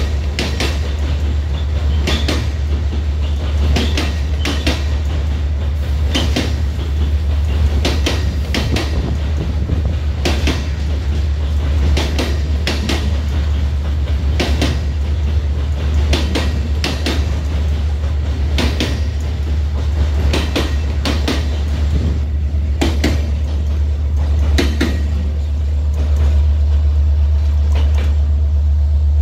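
Freight train's wagon wheels clacking over rail joints as the wagons roll past, sharp knocks in irregular groups over a steady low rumble. About 25 seconds in the clacking stops and a steady engine hum comes in.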